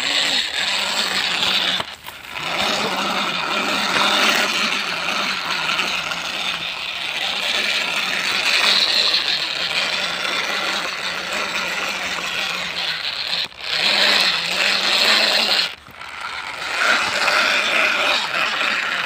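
Plastic toy truck pulled on a string over dry ground: a steady rattling whir from its wheels and axles, stopping briefly about two seconds in and twice more later on.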